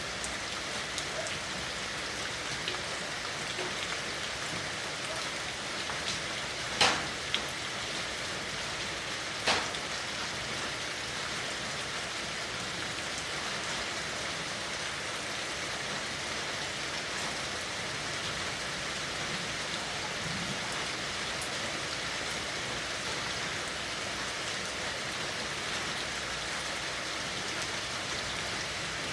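Steady rain falling on a surface, an even hiss of drops, with a few sharper taps standing out around seven and nine and a half seconds in.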